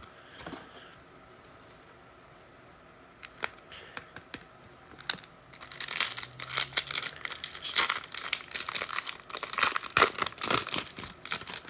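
Foil wrapper of a Panini Phoenix football card pack being torn open and crinkled. A few scattered crackles come about three seconds in, and the crinkling and tearing turn dense from about halfway through.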